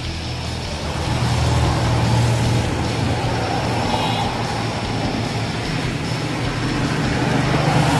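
An engine running steadily at idle, a low even hum that swells slightly a second or two in and again near the end.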